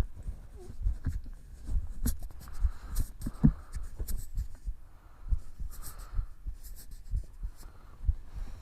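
A person's heartbeat heard up close: a steady run of low, soft thumps, with light rustling and scratching against the microphone.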